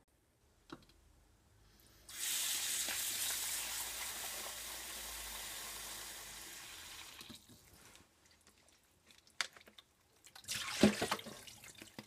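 A kitchen tap runs onto raw smelt in a plastic colander. The steady rush of water starts about two seconds in and stops a few seconds later. A few sharp knocks and a short clatter follow near the end, the loudest moment, as the wet colander is handled at the sink.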